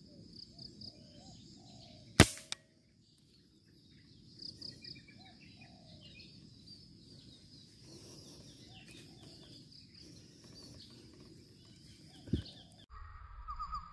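A single sharp air-rifle shot about two seconds in, with a faint knock a split second after it. Birds chirp faintly in the background, and a fainter sharp click comes near the end.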